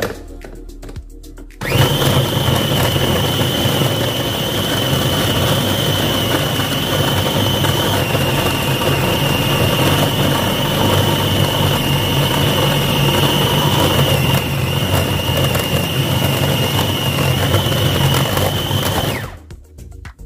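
Food processor motor running steadily with a high whine, its blade grinding raw chicken pieces into a paste. It switches on about two seconds in and stops shortly before the end.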